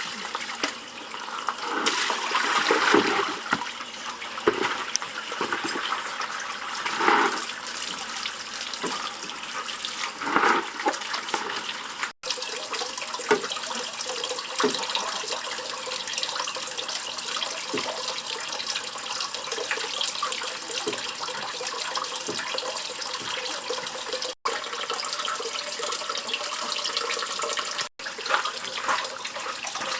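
Water running steadily, with louder splashes a few times in the first ten seconds.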